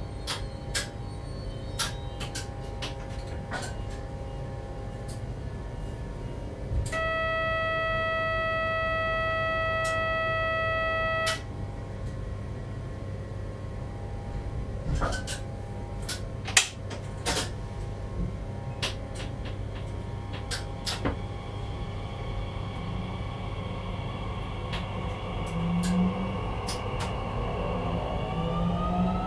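Bombardier Z50000 electric multiple unit standing at a platform, heard from inside the driver's cab: a steady low hum with scattered clicks, and a steady warning tone for about four seconds some seven seconds in. From a little past twenty seconds the traction motors start whining, rising in pitch as the train pulls away.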